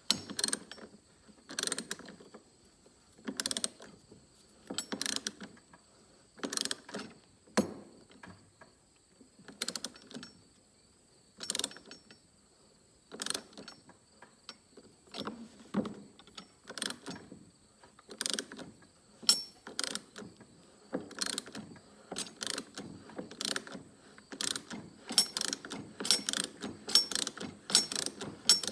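Ratchet driving a snug T27 Torx screw into a tailgate latch. It clicks in short bursts spaced about a second and a half apart, coming faster near the end.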